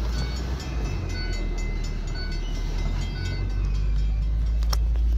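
Tail of a Milford-Bennington Railroad freight train rolling past a road crossing as its caboose goes by, over the steady low drone of an idling car. A sharp click near the end.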